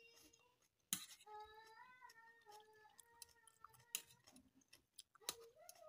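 Faint eating sounds of instant fried noodles: chewing, with sharp clicks of a metal fork against the metal tray about a second in, near four seconds and past five seconds. Behind them a faint wavering tone is held for about three seconds, starting around a second in.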